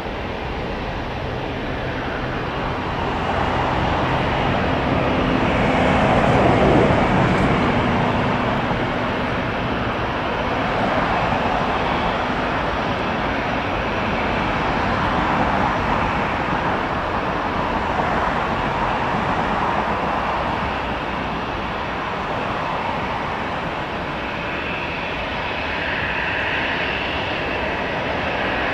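Jet engines of an Emirates wide-body airliner running on the ground, a steady loud noise that swells to a peak about seven seconds in, with a high engine whine coming up near the end.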